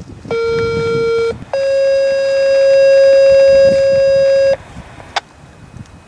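Two-tone sequential paging alert over a radio: a lower steady beep about a second long, a brief gap, then a slightly higher beep held about three seconds, followed by a single click near the end.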